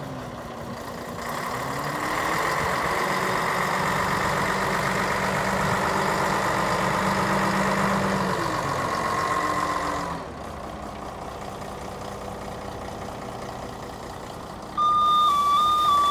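Volvo A40 articulated haul truck's diesel engine running. Its speed rises about a second in and holds, then drops back to a lower idle about ten seconds in. Near the end a loud, steady electronic tone starts, stepping slightly up and down in pitch.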